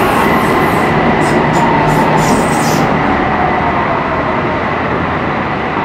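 BTS Skytrain electric train running past on an elevated track as its last cars go by; the high-pitched part of its noise drops away about three seconds in, while a steady rumble carries on.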